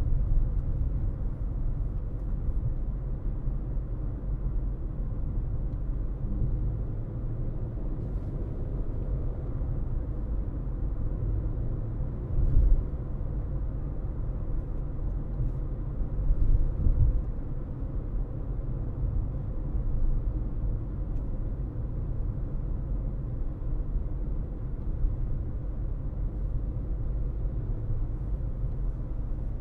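A car driving, with a steady low rumble of road and engine noise and a couple of louder bumps, about twelve and seventeen seconds in.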